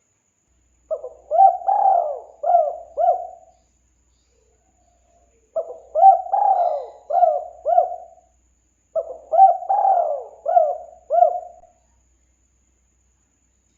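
Spotted dove (tekukur) cooing: three song phrases of about five coos each, a couple of seconds apart.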